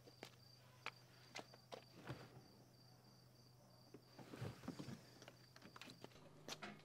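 Faint clicks of high-heeled footsteps on pavement, about two steps a second, stopping about two seconds in, over a steady high cricket chirring. Soft rustling follows later, and the chirring stops near the end.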